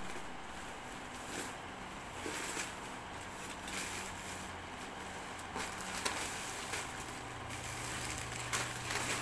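Plastic packaging rustling and crinkling in irregular crackles as a black bubble-wrap mailer and a clear bag of wrapped candies are pulled open by hand.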